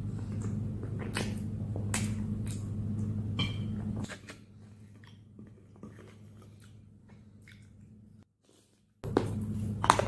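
Close-miked eating sounds: scattered clicks and smacks from chewing and a plastic spoon in a glass bowl of sauce, over a steady low hum. The sounds drop much quieter about four seconds in, go nearly silent briefly, and return about nine seconds in.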